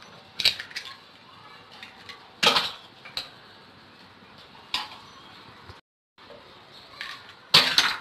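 Eggs being cracked open over a stainless steel bowl: several sharp knocks a second or two apart, the loudest about two and a half seconds in and again near the end.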